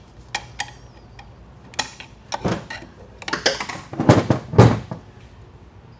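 Light metal clicks of a steel pick tool against a transmission's overdrive housing, then a few louder rough scraping and rubbing handling noises on the bench, loudest about four to five seconds in.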